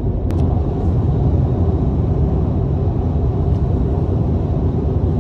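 Steady road noise inside a car cruising at highway speed: a low rumble of tyres and engine, with one brief click just after the start.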